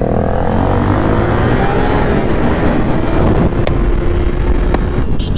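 Motorcycle engine running under way with wind noise, its pitch rising through the first couple of seconds as it accelerates, then holding steady, with two faint clicks near the end.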